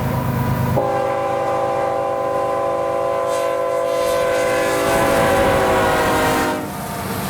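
Diesel locomotive's multi-chime air horn blowing a long chord of several notes over the low rumble of the passing train. The chord sounds again louder about a second in, holds for several seconds, drops in pitch near the end and cuts off, leaving the train's rumble.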